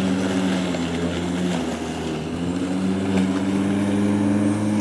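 A steady engine drone with a low hum, sagging briefly in pitch about two seconds in and then picking up again.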